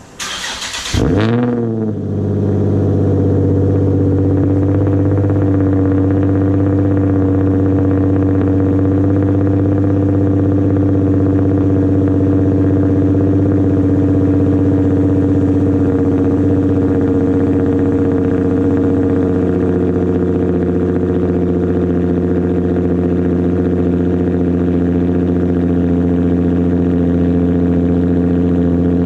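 A Nissan V6 with a freshly fitted Tomei exhaust and ISR Y-pipe cranks and fires on its first start. It flares up briefly, then settles into a loud, steady idle. The idle drops slightly about two-thirds of the way through as the cold-start fast idle eases.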